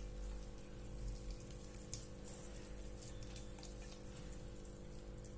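Faint squishing and rustling of a bare hand mixing and pressing moist rice-flour dough with butter in a steel bowl, with a few soft clicks. A steady low hum runs underneath.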